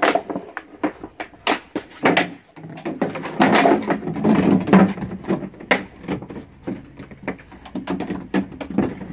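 Thin plastic bucket being chewed, crunched and knocked against wooden deck boards by a large dog: an irregular run of sharp clacks and knocks, with a denser stretch of crunching and scraping in the middle.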